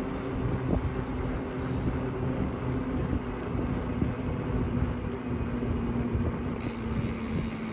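Wind buffeting the microphone and bicycle tyres rolling on asphalt while riding along at speed, with a steady low hum underneath.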